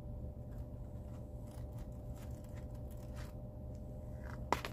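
Faint clicks and light rustling from a small wallet being handled in the hands, over a steady low hum, with one sharper click near the end.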